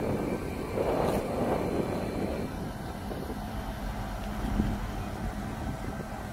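Truck engine running steadily to drive the lorry-mounted hydraulic crane as it holds a boat in its slings, with a swell in level between about one and two and a half seconds in.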